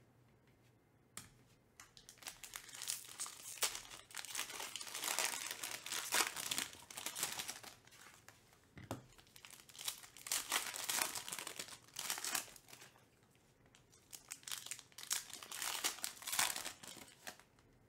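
Foil trading-card pack wrapper being crinkled and torn open by hand, in several bouts with short pauses between them. A single light knock about halfway through.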